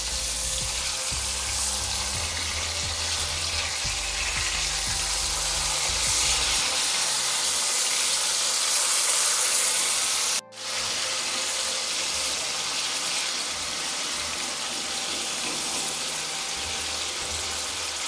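Marinated leatherjacket fish pieces sizzling steadily as they shallow-fry in hot oil in a nonstick pan. The sizzle drops out for a moment about ten seconds in.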